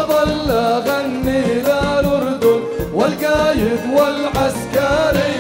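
Live Jordanian song played by an orchestra with singing, over a steady drum beat; the melody rises in quick upward slides at the start and again about three seconds in.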